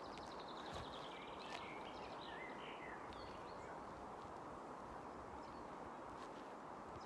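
Steady outdoor background hiss with faint songbirds: a short rapid trill in the first second and a half, then a few chirps.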